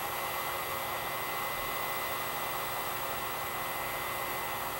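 Heat gun set on low, blowing a steady hiss of hot air onto a circuit board to melt the solder under surface-mount transistors so they can be lifted off.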